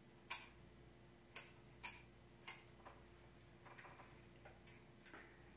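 A series of irregular plastic clicks as a small handheld camcorder is fiddled with until a part comes open: a few sharper clicks in the first half, then fainter ones, over a faint steady hum.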